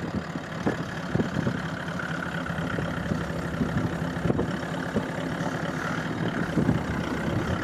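Toyota LandCruiser 79 Series' 4.5-litre V8 turbo diesel running steadily at low revs through a 3-inch exhaust, heard from beside the truck.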